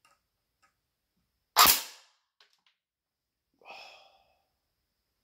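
Snow Wolf PPSh-41 electric-blowback airsoft gun firing a single shot: one sharp crack with a short tail, about one and a half seconds in. A fainter sound with a ringing note follows about two seconds later.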